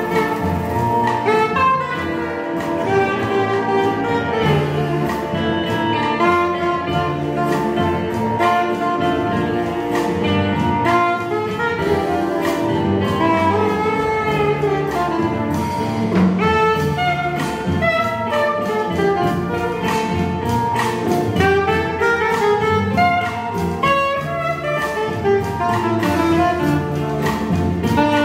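Soprano saxophone playing a melodic jazz solo over a big band's accompaniment.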